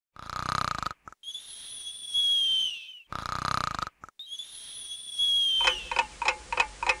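Cartoon-style snoring: a short rasping snore followed by a long high whistle that dips in pitch at its end, heard twice. Near the end, a run of regular ticks, about three a second, takes over.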